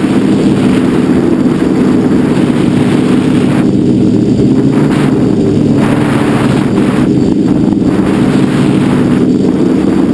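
A quadcopter's electric motors and propellers whine loudly and steadily, heard from a camera mounted on the quad in flight. Over the whine is a rushing hiss that drops away briefly a few times.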